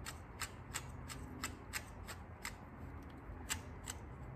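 The plastic gear train of an Audi 2.0 TFSI electronically controlled water pump being turned by hand, giving faint, evenly spaced clicks about three times a second as its internal ball-type rotary valve opens back up.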